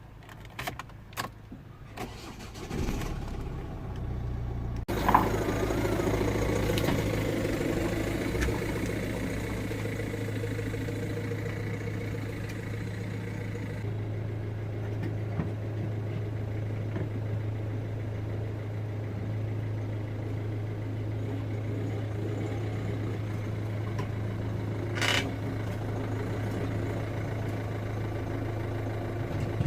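A few knocks, then the Mazda 3's 1.6 four-cylinder turbo-diesel engine starts about five seconds in and settles into a steady idle.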